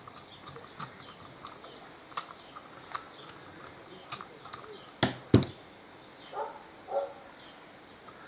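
Ratchet wrench clicking as it turns out the bolts of a four-piston motorcycle brake caliper, a sharp click every second or so. Two loud metal knocks come about five seconds in.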